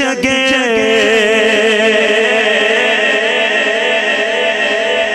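A man singing a naat, an Urdu devotional song, through a microphone and PA. He holds long, drawn-out notes whose pitch waves and slides in ornamented runs.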